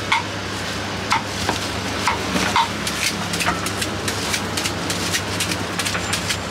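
Serrated crinkle-cut knife shaving slices off a green fruit held in the hand, in irregular crisp cutting strokes about one or two a second. A steady low hum runs underneath.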